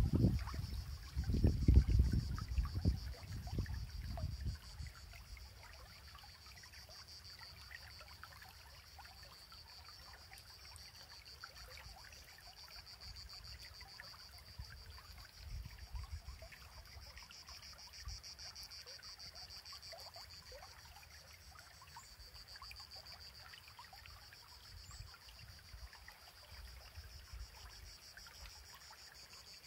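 Water of a small stream trickling and running, under a steady high-pitched hiss or buzz. Low rumbling thumps are loudest in the first few seconds, then die away.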